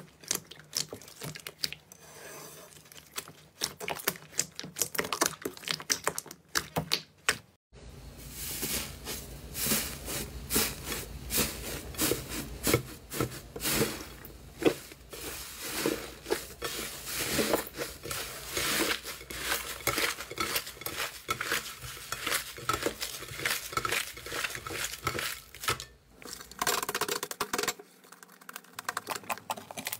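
Hands squeezing and kneading thick slime: wet squelching with dense, rapid clicks and crackles. It gets louder and fuller about eight seconds in, and the texture changes again near the end.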